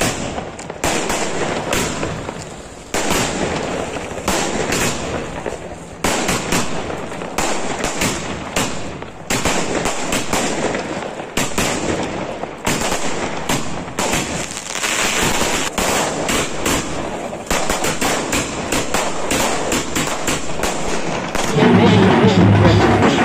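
Fireworks and firecrackers going off: a long, irregular run of sharp bangs and crackles. Loud music with a heavy beat comes in near the end.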